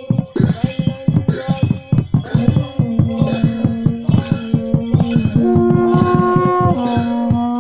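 Live music for a circle dance: a drum beats a quick, steady rhythm of several strokes a second under long held melodic notes that step to a new pitch every second or two.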